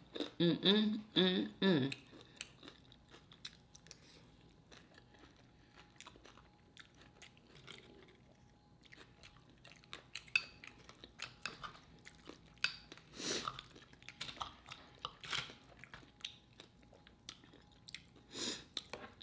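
Close-miked chewing and crunching of homemade tortilla chips and enchiladas, with a scatter of crisp crunches and mouth clicks and a few louder bites.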